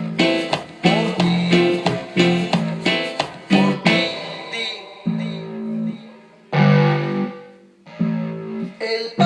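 Korg X3 music workstation synthesizer playing a plucked, guitar-like patch. Quick repeated notes run over a bass line for about four seconds, then give way to longer held notes and chords, with a short break near the end.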